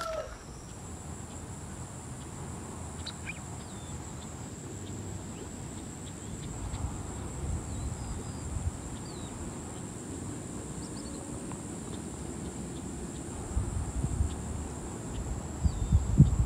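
Rural outdoor ambience: a steady high-pitched drone of insects, with a few faint short bird chirps. Low wind rumble on the microphone comes in gusts near the end.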